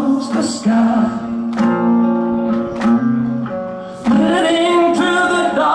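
Live rock band: a male lead singer sings a melodic line over guitar accompaniment, with some notes held.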